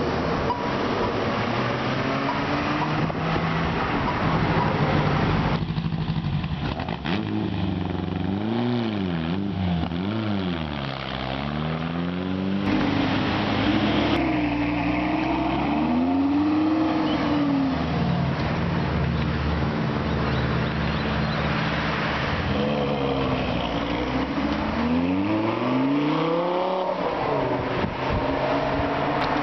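Supercar engines in several short clips, among them a Ferrari 360's V8 pulling out and a Lamborghini Gallardo Spyder's V10 driving off. The engines rev up and down again and again and accelerate away, the pitch climbing and falling with each rev and gear change.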